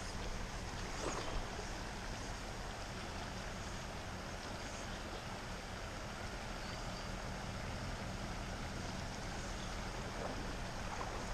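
Steady rush of a shallow river running over rocks.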